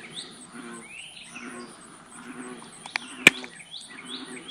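Faint outdoor birdsong: short chirps repeating over a steady high, pulsing insect drone. A single sharp click about three seconds in is the loudest sound.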